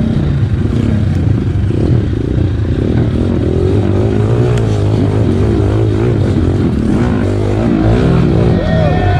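Trail dirt bike engine running at low speed, its pitch rising and falling over and over as the throttle is worked through a rocky stream crossing.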